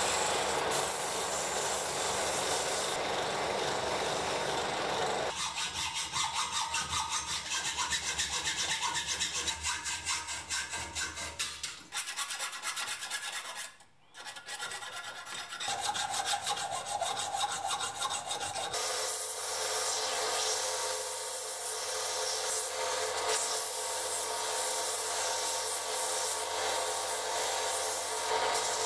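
Hand filing of a short metal tube ring held in a bench vise, a run of quick regular scraping strokes. Later a belt sander runs steadily, grinding the ring against its belt.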